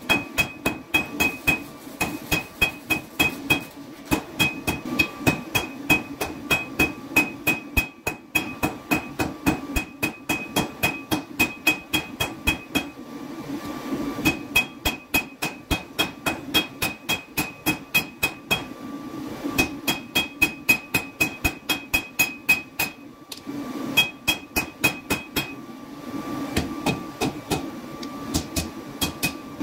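Hand hammer striking red-hot steel on an anvil, about three blows a second, each with a bright metallic ring from the anvil. The hammering stops briefly twice as the blade is turned. A steady low hum runs underneath.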